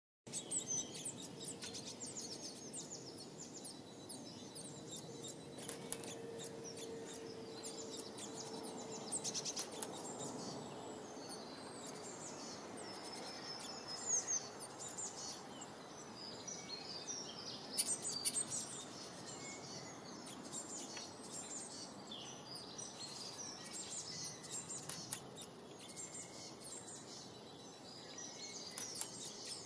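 Many small birds chirping over a steady background hiss, with a few brief clicks.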